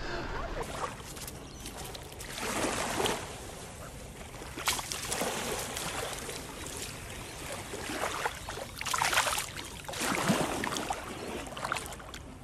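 Shallow water sloshing and splashing, rising and falling in several uneven surges.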